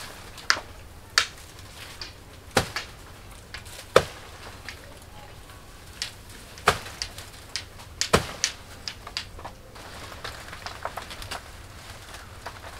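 Blade chopping into a banana plant, a dozen or more sharp, irregular strokes with the loudest about four seconds in.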